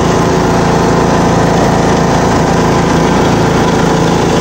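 Craftsman riding lawn mower's engine running steadily as the mower drives across grass, with a constant even drone.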